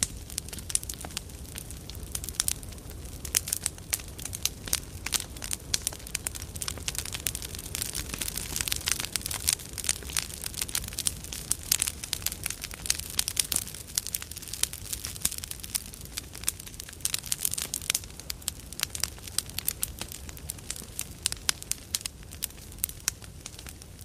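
A large campfire burning: dense, irregular crackling and popping of the wood over a low, steady rumble of the flames, the crackles busiest through the middle stretch.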